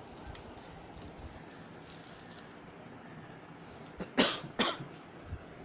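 A person coughing twice in quick succession about four seconds in, over faint room background.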